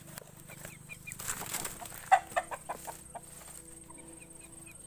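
Native chickens clucking in a run of short clucks, with thin high peeps of chicks scattered through, and a brief rustle of dry leaves a little after one second in.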